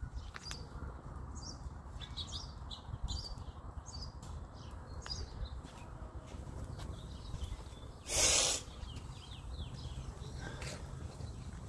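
Small birds chirping over and over, short faint calls, over a steady low outdoor rumble. About eight seconds in, a person sneezes once, loudly and briefly.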